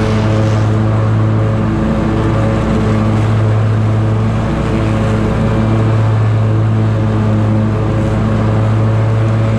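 Scag Tiger Cat zero-turn mower running steadily under load, its engine humming while the 61-inch deck's blades cut grass.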